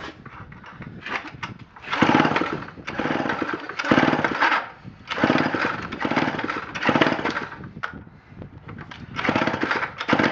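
Homelite C-5 chainsaw being pull-started over and over, about five hard yanks on the recoil starter cord turning the engine over without it catching. The owners suspect a dirty carburetor or no spark.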